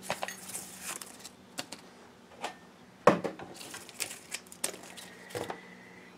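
Cardboard pieces and a utility knife handled on a wooden workbench: a light scrape of cardboard at the start, then a scatter of separate knocks and taps as things are picked up and set down, the sharpest about three seconds in.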